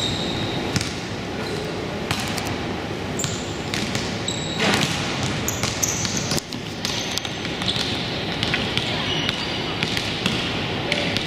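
Basketball game play in a gym: the ball bounces on the court again and again with sharp knocks, and sneakers give short high squeaks over a hubbub of voices.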